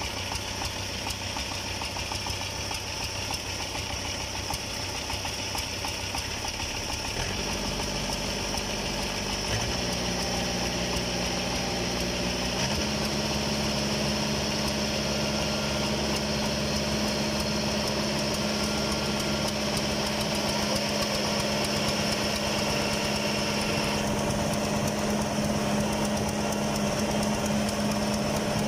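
Small diesel engine of a mired two-wheel walking tractor running, speeding up in steps about seven, ten and thirteen seconds in, then holding a steady higher speed as it is worked to get out of the mud.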